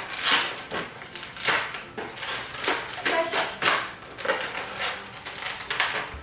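Latex modelling balloons being twisted and wrapped by hand: repeated rubbing swishes with short rubbery squeaks.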